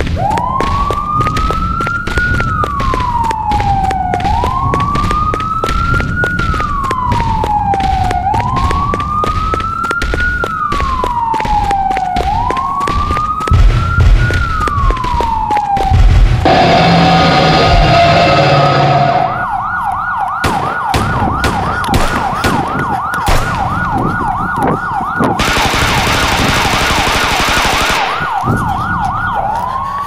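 Emergency vehicle siren in a slow wail, rising and falling about every four seconds, under constant tape crackle. About halfway through come a few heavy thumps and a burst of harsh noise. The siren then switches to a fast yelp.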